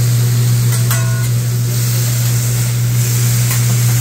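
Chopped meat and vegetables sizzling on a hibachi teppanyaki griddle as the chef turns them with metal spatulas, over a loud steady low hum. A spatula clinks with a short ring about a second in, and ticks lightly near the end.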